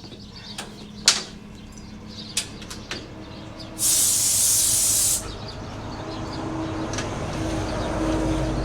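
Compressed air hissing loudly from an air hose at the air shocks' fill valve for about a second and a half, after a few sharp clicks and knocks of handling the fitting. A low steady hum builds after the hiss.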